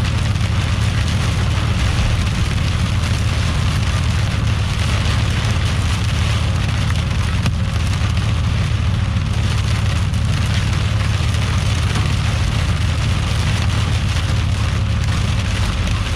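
Rain and light hail pattering on a truck, heard from inside the cab over a steady low rumble.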